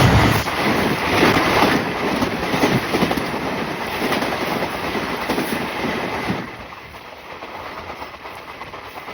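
Passenger train passing close by, its wheels clattering over the rail joints. The noise drops sharply about six seconds in, leaving a quieter rumble.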